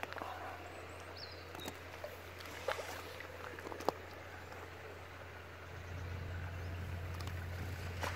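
Faint splashing and small clicks from a hooked fish thrashing at the surface as a landing net scoops it, over a low steady rumble that grows a little louder about six seconds in.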